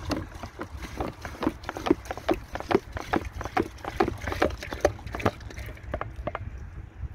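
Liquid bee feed glugging out of an upturned plastic bottle into a hive's internal feeder, about three glugs a second as air bubbles back into the bottle, stopping about six seconds in.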